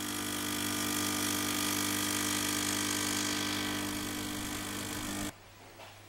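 A steady hum made of several even, unchanging tones over a hiss, cutting off suddenly near the end.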